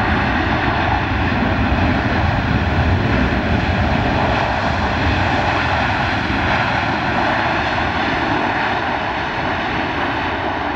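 Airbus A330 freighter's jet engines running loudly as it rolls out after landing on a wet runway, a steady whine over the rush of air, easing slightly near the end.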